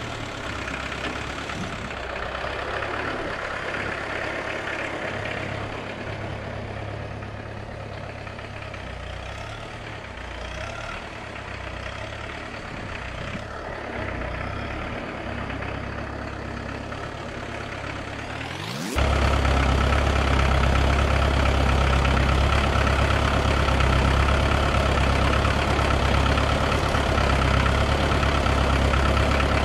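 Diesel engine running steadily. About two-thirds of the way through, the sound jumps abruptly louder and closer, with a stronger low drone.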